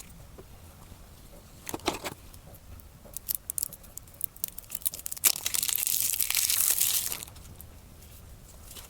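Board game packaging being handled: a few sharp clicks and crinkles, then a tearing sound lasting about two seconds from around five seconds in.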